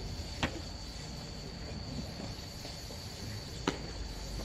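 Crickets trilling in a steady, high, even tone through a night-time ballfield ambience, cut by two sharp pops about three seconds apart. The first, about half a second in, is a pitched baseball smacking into the catcher's mitt.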